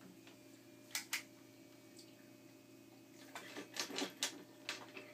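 Clicks and light clatter of a pistol-grip soldering gun and its cord being picked up and handled on a cluttered desk: two sharp clicks about a second in, then a short run of knocks and clatters near the end, over a faint steady hum.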